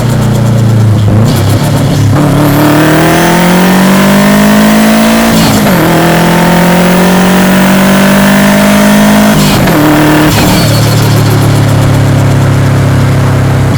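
Subaru Impreza WRX's EJ207 2.0-litre turbocharged flat-four pulling through two gears. Its revs climb steadily, drop sharply at a gear change about five and a half seconds in, climb again, and drop about nine and a half seconds in before settling into a steady run.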